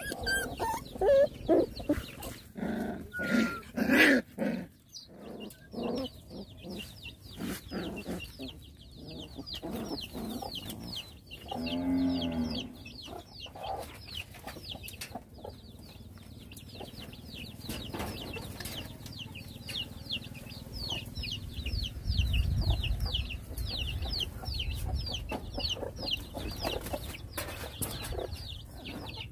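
Puppies scuffling and squealing as they play-fight, loudest in the first few seconds. Chickens cluck in the yard, with a constant run of short, high, falling chirps.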